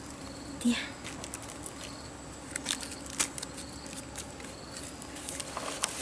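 Scattered light snaps and cracks, with some rustling, as bracket fungi are broken off a tree trunk by hand. One snap about a second in is louder than the rest.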